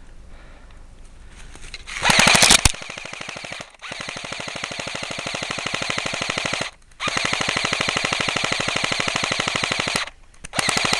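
Airsoft guns firing on full auto: a short, very loud burst about two seconds in, then long bursts of rapid shots of about three seconds each, with brief pauses between them.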